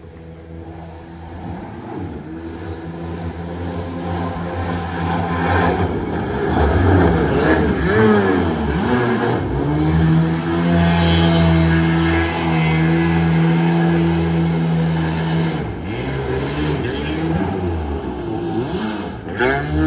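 Kawasaki 650 engine of a homemade aluminium mini jet boat running at speed, growing louder as the boat comes closer. Its pitch swings up and down several times as the boat turns, then holds steady and high, with a hiss of spray over it.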